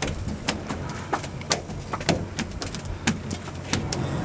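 Sharp, irregular clicks, about two a second, over the steady low hum of a sportfishing boat's engine.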